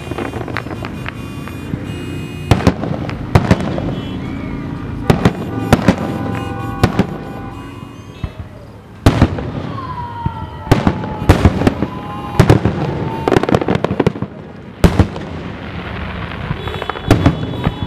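Aerial fireworks shells bursting with sharp bangs, often several in quick succession, the loudest about nine and fifteen seconds in.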